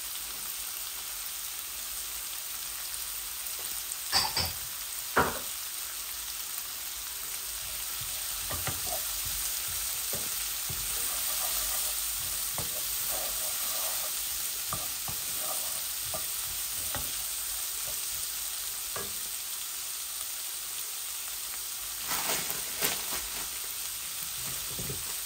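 Sliced peppers, onion and sweet corn sizzling in a non-stick wok over a gas flame, a steady frying hiss. A wooden spatula scrapes and knocks against the pan now and then, most sharply about four to five seconds in and again near the end.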